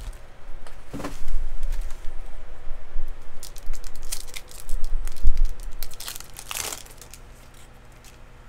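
Foil wrapper of a Topps baseball card pack being crinkled and torn open by hand: a run of crackles and tearing, loudest about five to seven seconds in.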